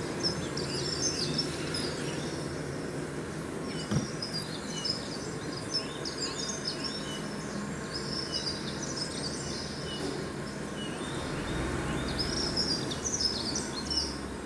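Birds chirping in several bursts of short high calls over a steady low background noise.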